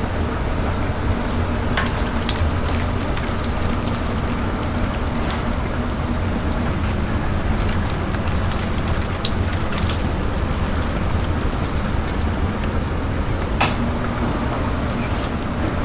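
A mass of live loaches being tipped from a basket into a large tub, the wet fish slithering and splashing against each other with a steady wet pattering and a few sharp clicks, over a continuous low rumble.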